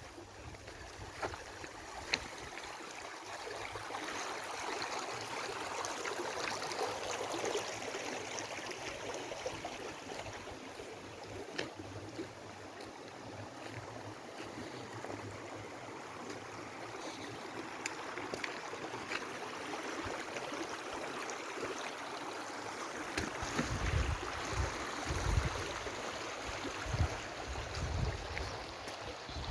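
Water of a small waterfall and stream rushing steadily. From about two-thirds of the way in, wind buffets the microphone in low gusts.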